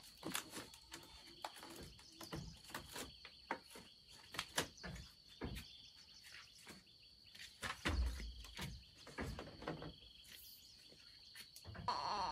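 Scattered clicks and knocks, a few of them louder thumps, over a steady high insect drone. Near the end a baby starts to cry.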